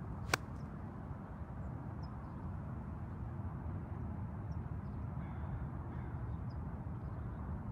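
A single sharp crack about a third of a second in: a golf club striking a ball on the downswing. It sits over a steady low outdoor rumble, with faint bird chirps now and then.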